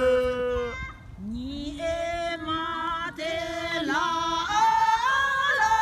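A mixed group of men and women singing together unaccompanied in long, held notes. One phrase ends about a second in, and after a brief gap a new phrase begins, rising into another held note.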